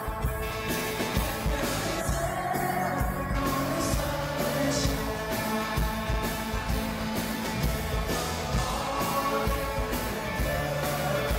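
Live pop-rock band music: a steady drum beat under sustained chords, with singing.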